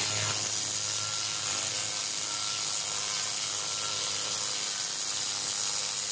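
A power tool running at a steady speed, a loud even hiss over a faint low hum.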